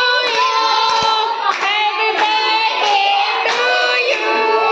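A group of voices, women and children together, singing with long-held notes, with hand clapping.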